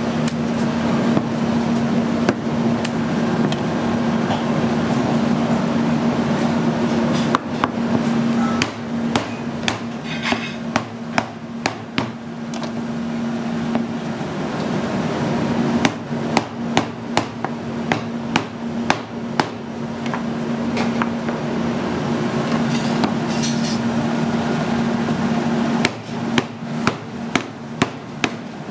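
Chef's knife striking cooked lobster claws wrapped in a towel on a cutting board to crack the shells: runs of sharp knocks, several a second, starting about seven seconds in, again around sixteen seconds and near the end. A steady low hum lies underneath throughout.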